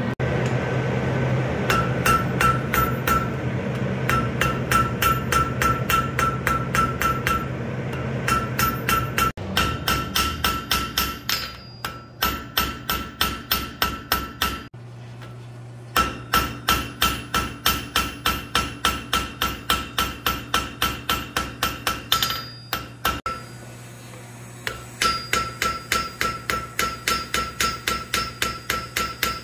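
Hand hammer striking hot steel held in tongs on an anvil, in quick runs of about three blows a second with short pauses between runs. Each blow leaves a clear ring from the anvil.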